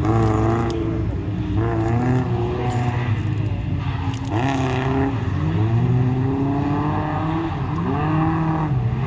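Car engine being driven hard through a cone slalom, its pitch climbing under acceleration and falling back again and again as the driver lifts and shifts, with a sharp drop and fresh climb about four seconds in.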